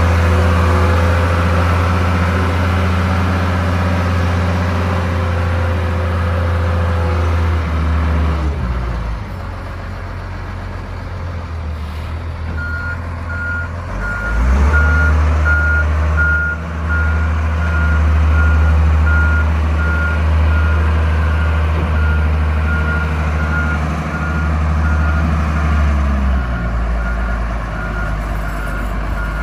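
1995 Case 621B wheel loader's 5.9L Cummins diesel running loud as the loader drives, easing off about eight seconds in, pulling up again around fourteen seconds and easing off near the end. From a little before halfway, its backup alarm beeps in a steady repeating series.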